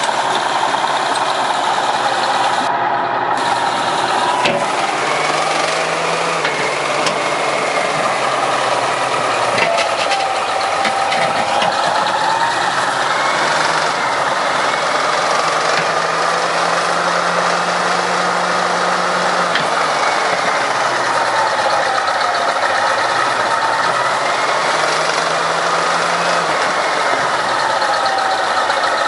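Heavy diesel construction machinery running steadily, its engine pitch rising and falling every few seconds as it works.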